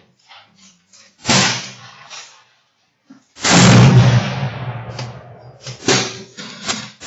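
Gunshots at a shooting range: one about a second in, a louder one at about three and a half seconds with a long ringing tail, then two shorter sharp cracks near the end.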